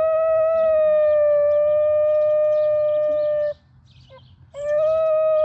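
Adolescent Basenji howling: one long, steady, high howl that sinks slightly in pitch and breaks off about three and a half seconds in, then a second howl starts about a second later.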